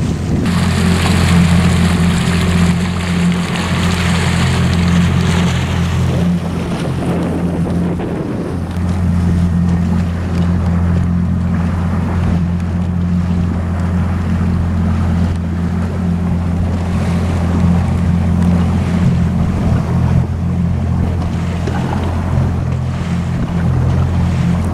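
A small motorboat's engine running at a steady drone under way, with water rushing past and wind buffeting the microphone; the wind noise is strongest in the first several seconds.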